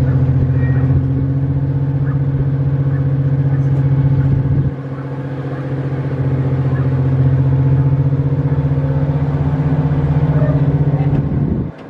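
Diesel engine of a heritage railway train running loud and steady with a fast rhythmic beat. About five seconds in its deep low end drops away and the sound then builds back up, and it cuts off abruptly near the end.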